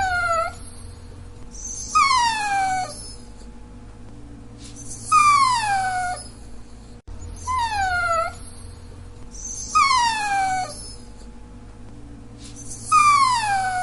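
Dachshund whining: short high cries that each slide down in pitch, about six of them spaced two to three seconds apart.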